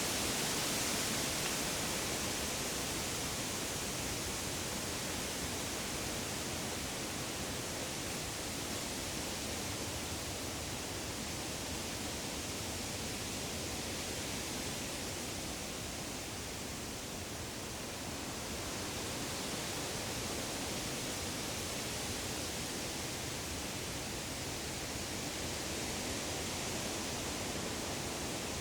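Woodland ambience: a steady, even rushing hiss with no bird calls or other distinct sounds, easing a little around the middle and swelling again.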